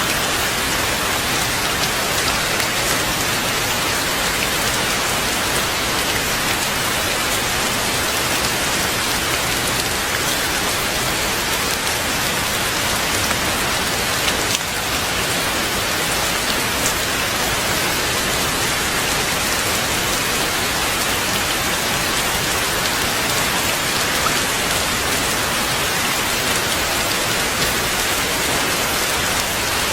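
Heavy rain falling steadily: a dense, even hiss with a few sharper drop ticks here and there.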